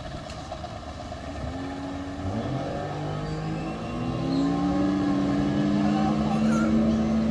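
Outboard motor of a small open dive boat throttling up as the boat pulls away, its pitch rising over the first few seconds and then holding steady as it gets louder. Wind buffets the microphone underneath.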